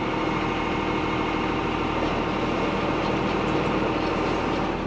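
JCB Fastrac tractor ticking over slowly with its PTO engaged at 540, driving a round baler whose chains are running. It is a steady, even mechanical hum, lovely and quiet.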